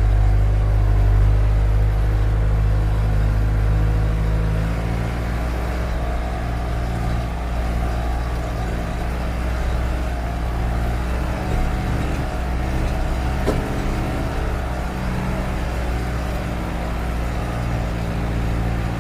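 A vehicle engine running steadily with a low, even note that shifts pitch about five seconds in, and a brief click a little past the middle.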